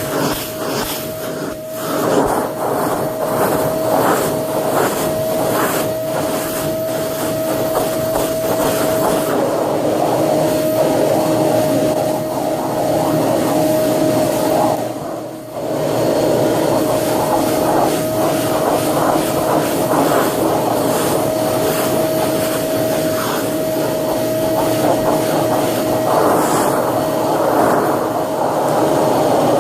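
Shark Lift-Away vacuum cleaner running with its brush attachment on carpeted stairs: a steady motor whine over suction rush, with repeated brushing strokes in the first several seconds. The whine and level drop briefly about halfway through.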